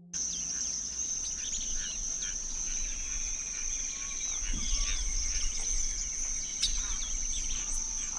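A steady high insect trill with many birds chirping in short calls over it.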